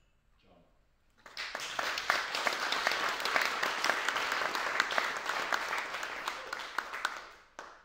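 Audience applauding with many hand claps, starting about a second in and dying away near the end.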